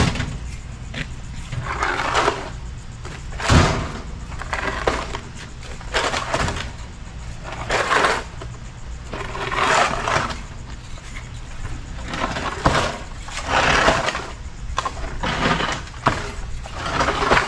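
Scraping and clattering of a metal household appliance being shifted by hand, in uneven swells about every one to two seconds.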